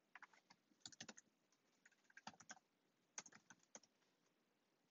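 Faint typing on a computer keyboard: quick key clicks in four short bursts as a word is typed.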